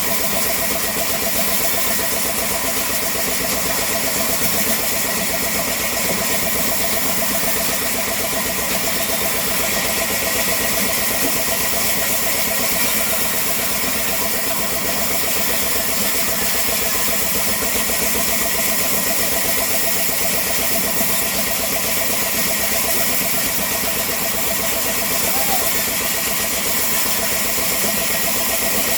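Sawmill machinery running steadily, a continuous mechanical drone with no break or change in level.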